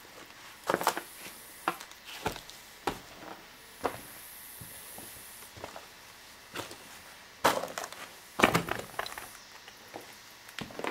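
Footsteps crunching over broken drywall, wood scraps and loose debris on a ruined floor: irregular crackles and snaps, the loudest cluster about three quarters of the way through.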